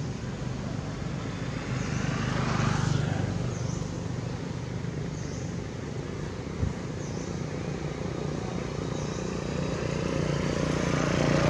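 Steady hum of a motor vehicle's engine, swelling twice as if passing, once about two to three seconds in and again near the end, with one short click about six and a half seconds in.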